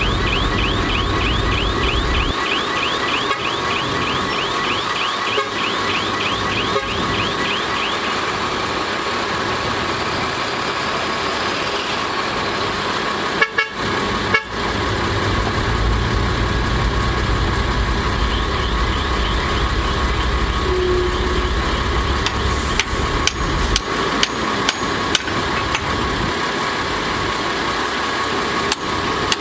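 Diesel engines of a bulldozer and dump truck running under load, with a steady high tone over a low rumble. There are two brief dropouts about halfway, and sharp metallic clanks come thick and fast near the end.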